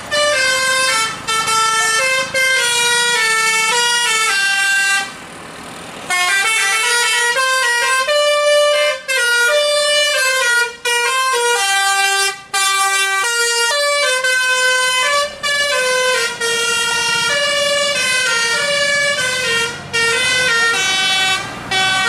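A tour bus's multi-trumpet musical air horn (a 'telolet' horn) playing a fast stepping melody of steady notes, played manually, with a short break about five seconds in.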